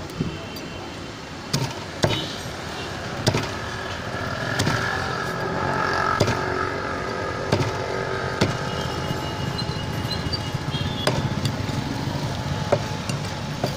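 A heavy cleaver chopping a common carp on a wooden block, about ten sharp knocks at irregular intervals, over a steady hum of street traffic.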